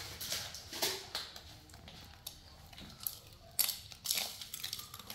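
Monkeys breaking and chewing dry instant noodles: irregular crunching and crackling, with a few sharp clicks.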